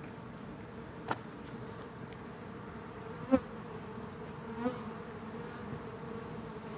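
A swarm of honey bees buzzing in a steady hum, with single bees flying close past the microphone three times, each a brief louder buzz.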